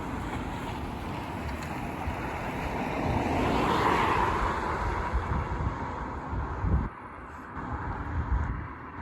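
A road vehicle driving past, its sound swelling to a peak about four seconds in and fading away, with wind buffeting the microphone.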